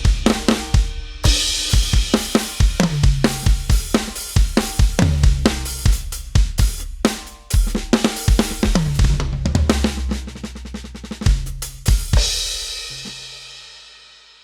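Addictive Drums 2 drum-kit samples triggered from an Avatar SD301-1 electronic drum kit: a fast, busy pattern of kick, snare, tom and cymbal hits with short breaks. The last hits come about twelve seconds in, and the cymbals ring and fade away.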